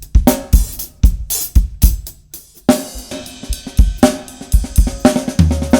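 Pacific Drums 805 series drum kit with a Mapex snare and Sabian cymbals played hard: a busy run of loud kick and snare hits with crashing cymbals.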